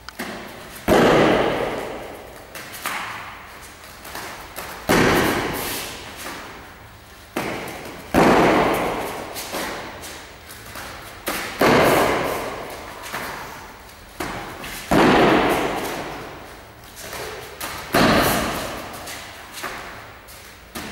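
Heavy thuds, about seven of them, one every three to four seconds. Each starts suddenly and dies away over a second or two, echoing in the hall. Some have a softer knock just before them.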